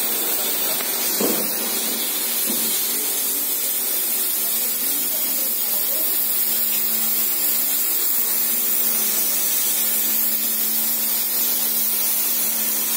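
Steady loud hiss with a low, even hum underneath, and faint voices briefly about a second in.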